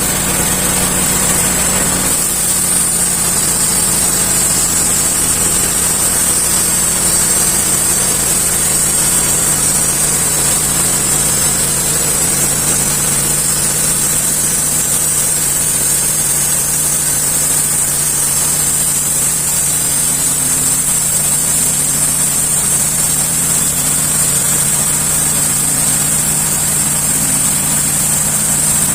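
Sawmill saw running steadily while cutting along the back face of a log, a constant low hum with a high whine above it. The blade is fed slowly through the cut because the log is warped.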